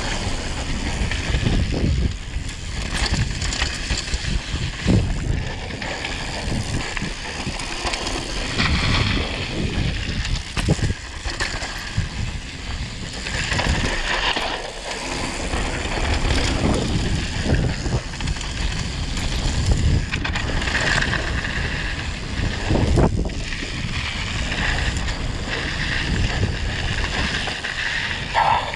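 Mountain bike descending a rocky dirt downhill trail at speed: wind rushing over the microphone and tyres on loose dirt and stones, with frequent short knocks and rattles from the bike over bumps.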